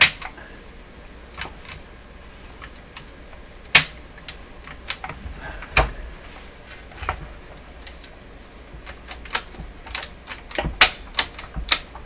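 Push-button switches of a Telefunken Salzburg console radio clicking as they are worked, to spread freshly sprayed contact cleaner through the contacts. The clicks come singly and irregularly, with several close together near the end.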